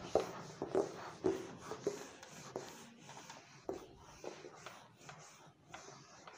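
A whiteboard duster is being rubbed back and forth across a whiteboard, erasing marker writing in a series of short scraping strokes. The strokes are strongest in the first second or so and softer after that.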